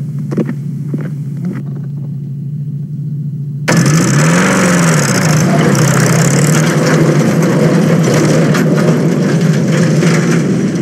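Old open-top jeep's engine idling, then abruptly much louder about four seconds in as it revs, the pitch rising and falling before it settles into steady running.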